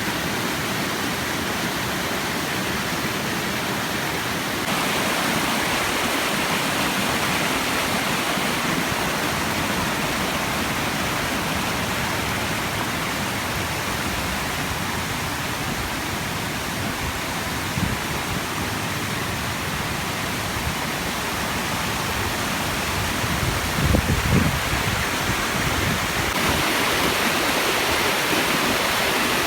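Water rushing steadily over a small river waterfall, a dense even roar that gets a little louder about five seconds in and again near the end. A few low bumps come briefly about three quarters of the way through.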